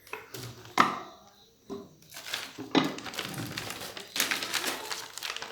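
A few wooden knocks, then a stretch of rubbing and clatter: dough balls being pressed and rolled out into pooris with a rolling pin on a board.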